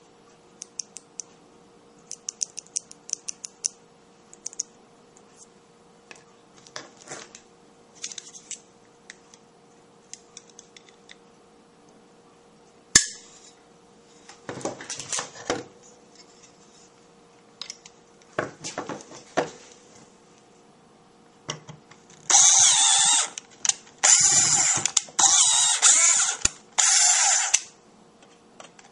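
Hand tools and small parts being handled on a workbench: light ticks and clicks, a sharp click about halfway, then a run of about five loud, harsh noises, each under a second long, in the last several seconds.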